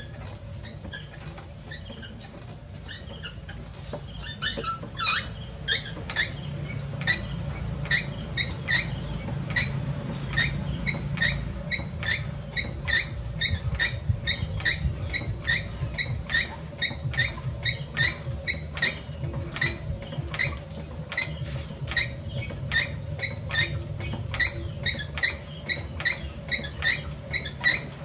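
A spinning potter's wheel runs with a low rumble, and about four seconds in a short, high-pitched squeak starts repeating roughly once or twice a second and keeps on.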